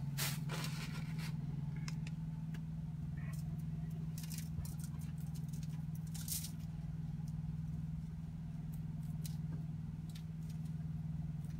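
Hands being wiped with a wet wipe: soft, scattered rustling and scraping, heaviest in the first second and again around the middle, over a steady low hum.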